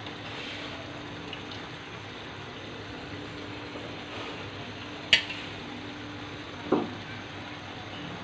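Rui fish curry simmering and sizzling steadily in a kadai as raw potato slices are added to it. A sharp click about five seconds in and a softer knock a second and a half later.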